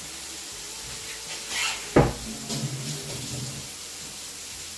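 Kitchen handling sounds: one sharp knock about two seconds in, the loudest sound, followed by a short clatter.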